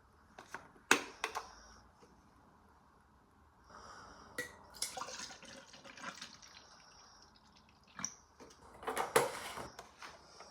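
Kitchen handling sounds at a sink: sharp clinks and knocks, with a stretch of trickling, dripping water in the middle.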